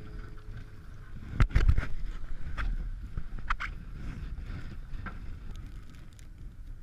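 Boat at sea with wind on the microphone: a steady low rumble and rushing noise, with a cluster of sharp knocks about a second and a half in and a few smaller knocks later.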